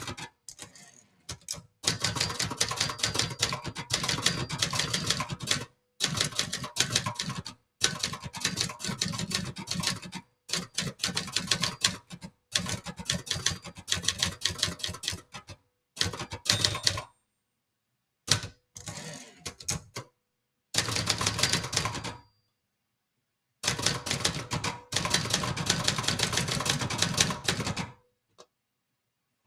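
Brother Charger 11 manual portable typewriter being typed on: fast runs of keystrokes with typebars striking the platen, broken by short pauses. The typing stops near the end.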